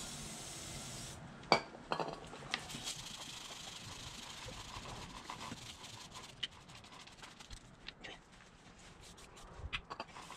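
A stiff brush scrubbing a motorcycle drive chain and rear sprocket wet with degreaser: scratchy brushing broken by sharp metallic clinks, the loudest about a second and a half in. A brief hiss at the start.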